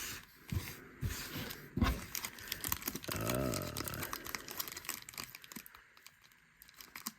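Baseball card packs being handled: foil wrappers crinkling and rustling, with a few light knocks. A short hum of a voice is heard about three seconds in.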